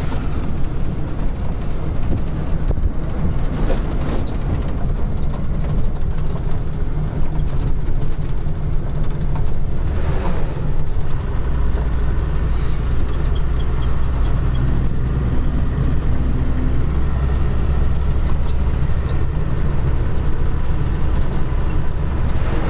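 Truck engine running with road noise, heard from inside the cab while driving. A steady deep drone that gets heavier and louder about eleven seconds in.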